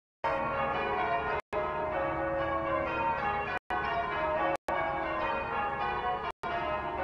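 Church bells rung in changes: several bells sounding over one another in a steady peal. The sound drops out completely for a split second four times.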